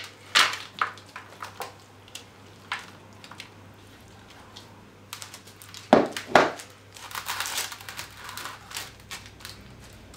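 Flapjack oat mix being tipped from a plastic bowl into a parchment-lined metal baking tin and pressed down with a spoon: scattered clicks, two loud knocks about six seconds in, then scraping and crinkling of the baking paper.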